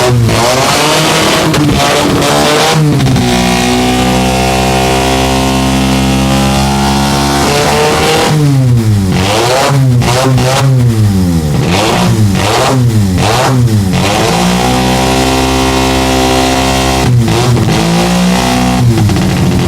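Norton rotary (Wankel) motorcycle engine, built from reject drone-engine parts, running loud and being revved: held at steady revs, then blipped rapidly up and down several times through the middle, held again, and blipped once more near the end.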